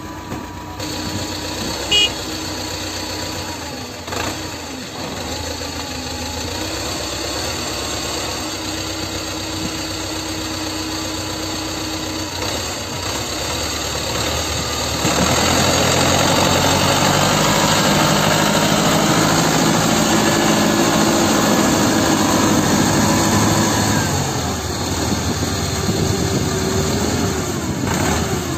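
T-40 tractor diesel engines running at idle, then revved up and held high for about nine seconds from around halfway before dropping back to idle. A short sharp click or knock about two seconds in.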